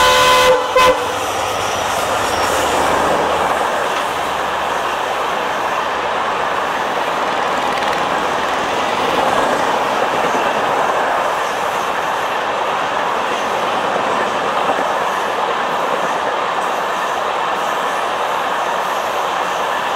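A diesel locomotive's horn cuts off within the first second. LHB passenger coaches then run past at speed, their wheels on the rails making a steady rolling noise.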